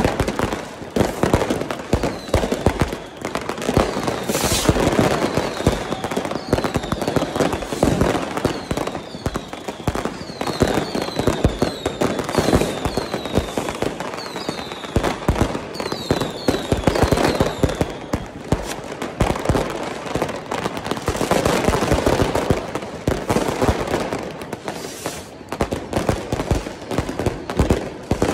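Fireworks and firecrackers going off in a dense, continuous crackle of bangs. Through the middle there is a run of about a dozen short whistles, each falling in pitch.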